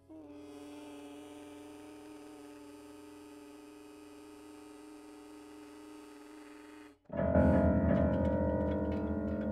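Contemporary music for piano, harmonica and live electronics. A soft chord is held for about seven seconds, breaks off abruptly, and is followed by a loud, low chord that decays slowly with a fast flutter.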